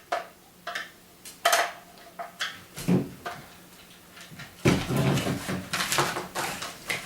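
Plastic paintball hopper shell and parts being handled on a table: several separate clicks and knocks, then a longer stretch of clattering and rattling with low thuds starting about two-thirds of the way in.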